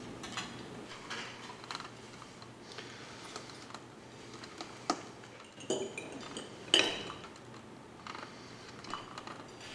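Cutlery and plates clinking and scraping, light and scattered, with sharper clinks about five, six and seven seconds in, the last ringing briefly.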